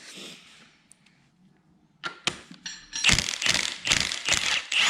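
A faint hiss at first, then about two seconds of rapid metallic clicking and rattling from a tool working a connecting-rod bolt loose during an engine teardown.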